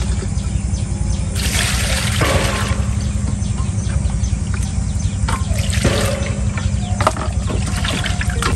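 Water sloshing and splashing as raw pork is washed by hand in a stainless steel basin, with the biggest splash from about one and a half to nearly three seconds in and smaller ones near six and seven seconds.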